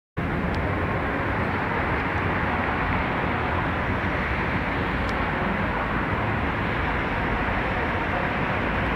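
Steady hiss and rumble of city street traffic on a wet road.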